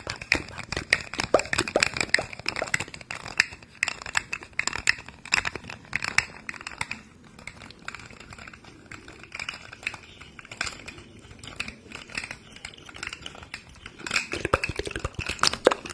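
Rapid, close-miked crackling and clicking, dense at first, thinning out through the middle and picking up again near the end.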